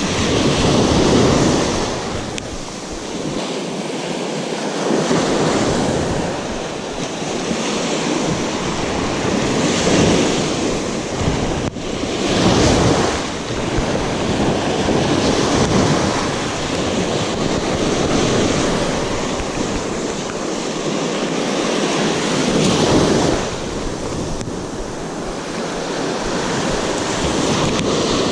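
Shallow beach surf washing in and out, swelling and easing every few seconds, with wind buffeting the microphone.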